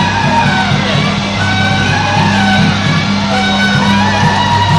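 Loud music: a melody of long held notes over a steady low hum.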